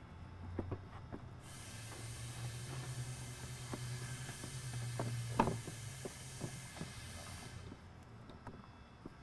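Plastic intake parts being handled and fitted, making scattered light clicks and knocks, with one sharper click about five seconds in. A steady hiss with a low hum sits underneath from about a second and a half in until near the end.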